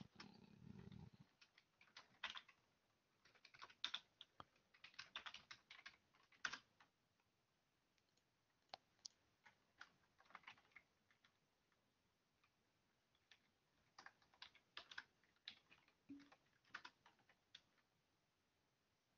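Faint computer keyboard typing: quick runs of key clicks with short pauses, busiest over the first several seconds and again near the end.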